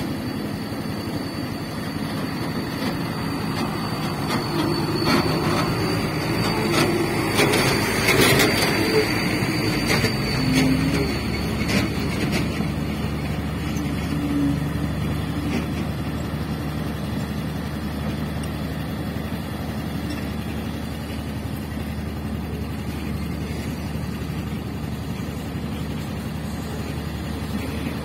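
Diesel engines of dump trucks and a crawler bulldozer running on an earthworks site. Clanks and rattles come thickest in the first half, then give way to a steady engine drone.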